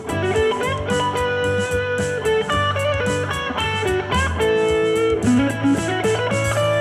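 Stratocaster-style electric guitar playing a blues-rock lead over a backing track in A Mixolydian, with string bends and slides between held notes. The phrases start on chord tones.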